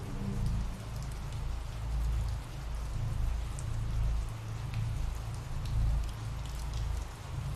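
Steady ambient rain with scattered single drops ticking, over a low rumble that swells and fades every second or two.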